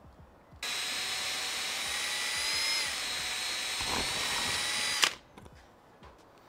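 Cordless drill run through a polycarbonate window and NACA duct flange to straighten misaligned bolt holes: a steady motor whine starting about half a second in, its pitch dipping briefly midway, then stopping with a sharp click after about four and a half seconds.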